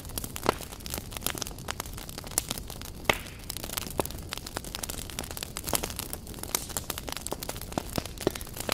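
Wood fire burning on a bed of embers, crackling with irregular snaps and pops over a soft hiss, one sharper pop about three seconds in.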